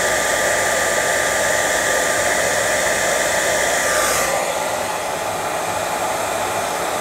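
Hand-held hair dryer blowing steadily on its low setting, pushing wet acrylic paint across a canvas. About four seconds in its sound shifts and thins as the dryer is tilted and moved.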